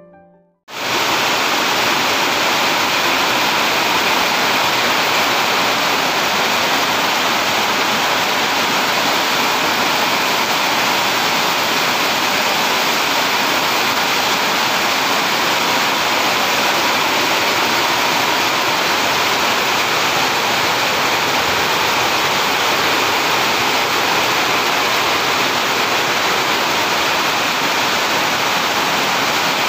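Heavy rain pouring down steadily: a dense, even hiss that starts abruptly just under a second in.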